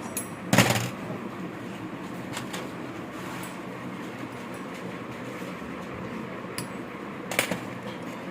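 Two sharp knocks from work on the turbocharger, about seven seconds apart, over a steady low hum.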